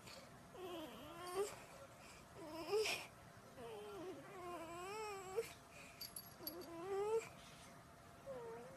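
A young child crying in a series of drawn-out, wavering whimpering wails, about six in all, each around a second long with short pauses between.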